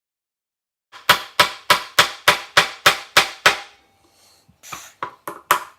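Hammer striking a giant jawbreaker candy: about nine quick, hard blows in a row with a faint ringing tone, a short pause, then a few more blows near the end.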